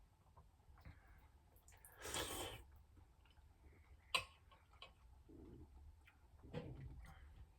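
Faint sounds of a person eating soup: a short slurp about two seconds in, a sharp click about four seconds in, and small clicks and mouth sounds between them.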